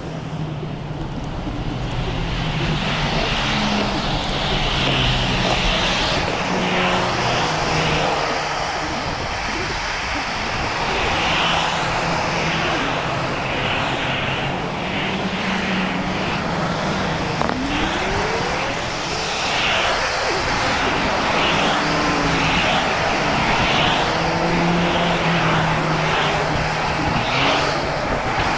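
Steady rush of wind and road noise from riding an e-bike, with a low hum that comes and goes.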